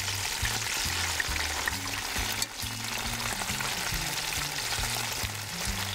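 Sourdough-battered elk cube steaks sizzling steadily in hot oil in a cast iron skillet. A low, stepping background music line runs underneath.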